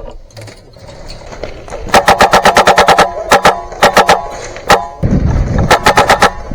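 Airsoft gun firing on full auto in several short bursts of about ten shots a second, the longest a second long, with a single shot between. A low rumble sits under the last burst.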